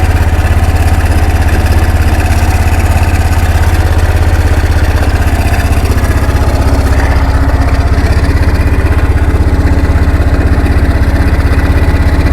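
Kawasaki 300 4x4 ATV's single-cylinder four-stroke engine idling steadily with a loud low pulsing.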